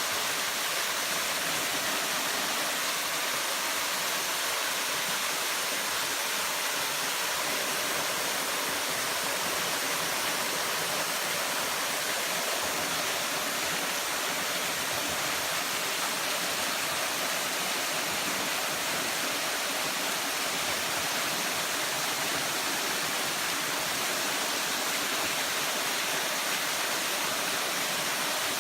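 Waterfall pouring, a steady even rush of falling water.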